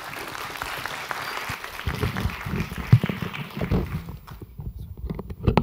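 Audience applauding, dying away about four seconds in, with a few low thumps and bumps through the second half.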